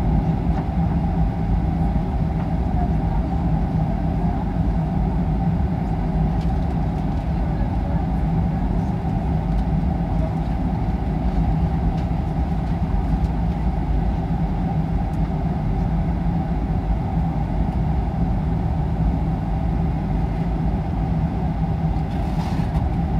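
Jet airliner cabin noise while taxiing: a steady, even drone of the engines at low power and the airframe, heard through the fuselage. A brief hiss comes near the end.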